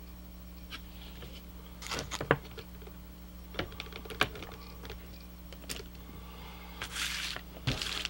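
Handling noise from a handheld digital inspection camera and its flexible gooseneck cable: scattered clicks and taps, a short cluster about two seconds in, with a brief rustle near the end. A steady low hum runs underneath.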